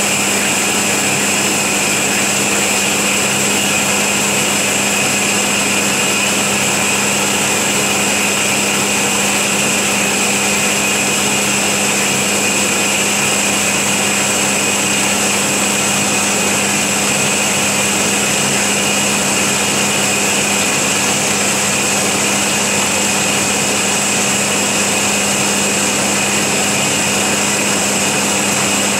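FMB Omega semi-automatic hydraulic band saw running, its blade cutting through solid bar stock: a steady hum with a high whine that holds unchanged throughout.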